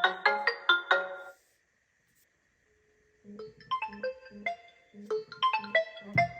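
Smartphone incoming-call ringtones: a melody of short struck notes that stops about a second and a half in, then, after nearly two seconds of silence, a different ringtone melody starts.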